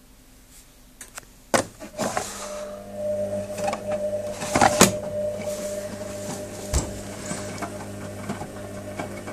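Hoover Special Edition 1300 washing machine starting up: a few sharp clicks, then its motor starts with a steady hum, with irregular knocks and rushes of noise over it.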